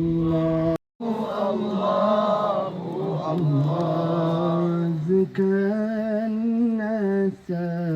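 A single voice chanting melodically in Arabic, as in Quran recitation or a qasida: long held notes with wavering ornaments. The sound cuts out for an instant about a second in.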